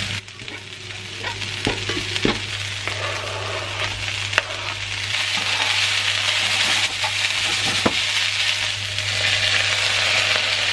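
Onions, green beans and mushrooms sizzling in a non-stick frying pan while a spatula stirs them, tapping and scraping the pan a few times. The sizzle grows louder about halfway through, over a steady low hum.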